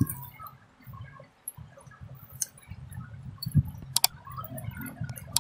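People eating puffed rice and fried fritters: quiet, irregular chewing and handling of food, with two sharp clicks, one about four seconds in and one near the end.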